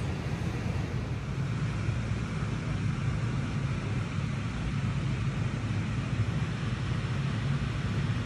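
Steady low rumble with a fainter hiss above it, even throughout, with no breaks or knocks.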